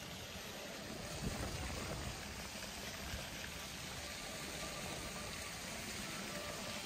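Steady hiss of splashing water from a plaza fountain, with two soft thumps about one and three seconds in.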